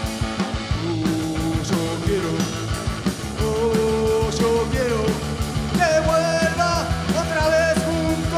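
Live rock trio playing an instrumental break: an electric guitar plays a lead line of held notes that slide and bend, over electric bass and a drum kit.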